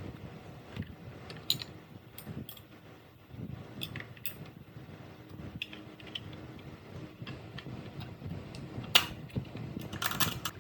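Metal parts and tools being handled on a workbench: scattered light clicks and clinks, a sharper knock about nine seconds in and a quick run of clinks near the end.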